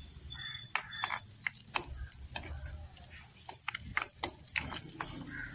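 A spoon stirring ginger and green chillies frying in a pot, with irregular clicks of the spoon against the pot over a faint sizzle.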